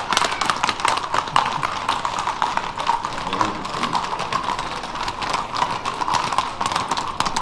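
Many horses' hooves clip-clopping on a hard street as mounted riders pass in a parade: a dense, uneven run of sharp clops.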